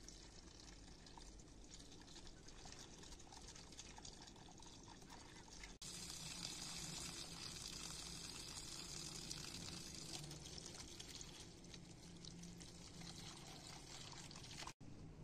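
Water running from an outdoor standpipe tap into a plastic colander of fresh herbs as they are rinsed by hand, a faint steady splashing that grows louder after about six seconds.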